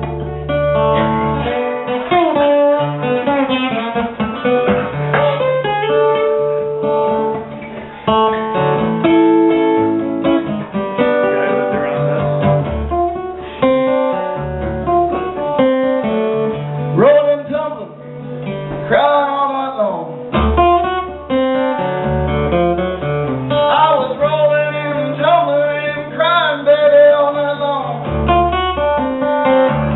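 Acoustic guitar played live, a continuous picked passage with low bass notes under a melody and some sliding, bending notes in the second half.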